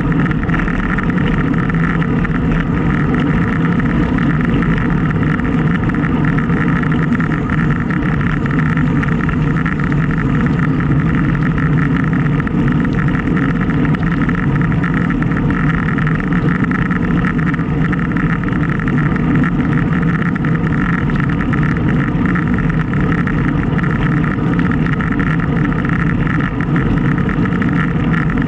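Steady rush of wind over the microphone and road noise while riding a road bike, an unbroken low drone with no let-up.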